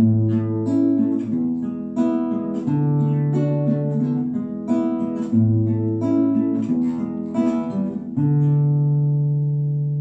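Acoustic guitar playing an instrumental interlude of a devotional song: plucked chords that change every second or two. The last chord, struck about eight seconds in, is left to ring and slowly fades.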